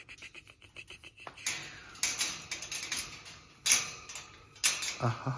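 A cockapoo puppy's claws clicking, then scraping and knocking against the metal wire bars of its playpen as it paws at them. It opens with a quick run of light clicks, about nine a second, in the first second or so, followed by scattered louder scrapes and rattles.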